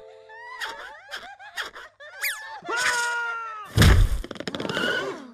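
Cartoon vocal noises and sound effects: short yelps, a falling whistle-like glide and a man's held scream, cut by a loud crash about four seconds in as the teacher is flung from the room.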